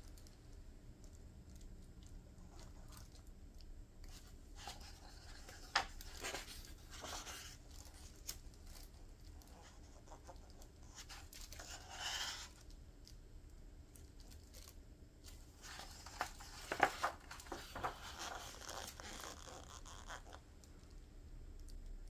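Pages of a hardbound book being turned by gloved hands: soft paper rustles and swishes with small clicks and taps, a longer swish about twelve seconds in and a flurry of rustling a few seconds later.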